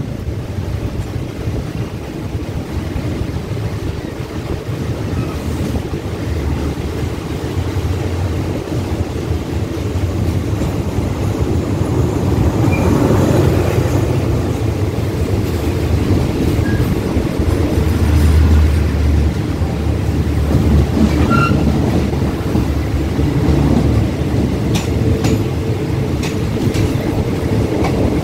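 A diesel-hauled passenger train passing close by on the adjacent track: a steady low rumble that grows louder about halfway through as the locomotive goes by. The coaches follow, and their wheels clack a few times near the end.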